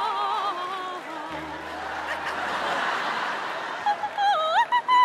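Operatic singing with a wide vibrato. A held note fades in the first second, audience laughter follows, and the voice comes back near the end with sliding, wavering notes.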